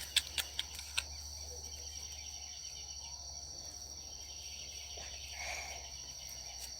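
Slime being kneaded by hand, giving a few sharp wet clicks in the first second. A steady high-pitched whine runs underneath.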